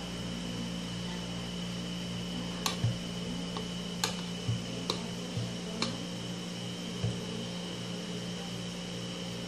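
Wire whisk stirring a liquid ice-cream mixture in a plastic bowl, knocking against the bowl in about eight short, sharp, irregular clicks through the middle, over a steady hum.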